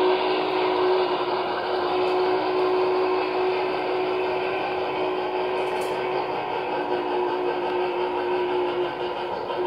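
Steady rolling whir of an O scale model train's cars running along the track, with a constant hum underneath.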